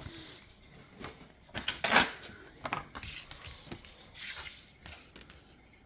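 Handling of lottery scratch-off tickets and a scratching coin: irregular clicks, clinks and short papery scrapes, loudest about two seconds in.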